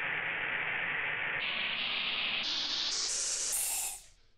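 A recorded aerosol air-freshener spray hiss played back sped up, rising in pitch and getting brighter in several distinct steps, then dying away near the end.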